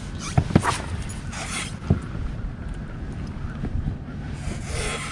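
Wind rumbling on the microphone, with a few sharp knocks about half a second and two seconds in, and short hissing swishes around one and a half seconds in and near the end.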